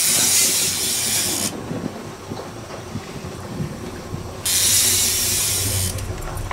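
Fishing reel drag paying out line with a high hissing buzz, twice: once for about a second and a half at the start and again for about a second and a half near the end, as a hooked brown trout runs against the drag. Each run starts and stops abruptly.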